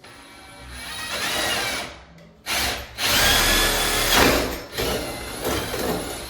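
Power drill boring a 1-inch hole into a wooden door, in two runs: a shorter one in the first two seconds, then a longer, louder one that eases off near the end.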